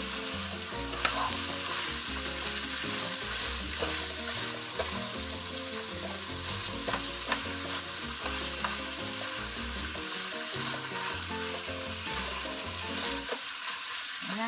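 Chicken pieces sizzling steadily in hot oil with onion, garlic and ginger as they are browned, stirred and turned with a spatula, with scattered light clicks and scrapes against the pan.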